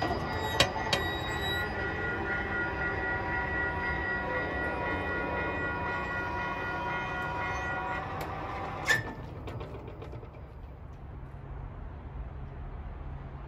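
Railway level-crossing warning bell ringing continuously, as a commuter train approaches the crossing. About nine seconds in, it cuts off sharply to the quieter, low rumble of a freight train rolling past.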